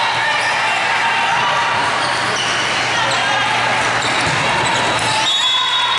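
Volleyball being played in a large gym: a steady hubbub of spectators' and players' voices, with a few sharp smacks of the ball being hit and short squeaks of sneakers on the court floor.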